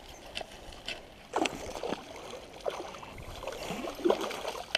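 Hooked largemouth bass thrashing at the surface close to the bank, splashing water in several irregular bursts.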